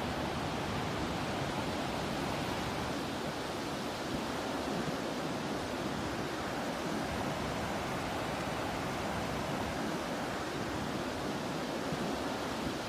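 Ocean surf and sea breeze: a steady, even rush with no distinct wave crashes and no bird calls standing out.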